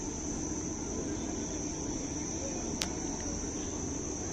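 Open-air ambience at a gathering: a steady high-pitched buzz over a low murmur and rumble from the crowd. A single sharp click comes nearly three seconds in.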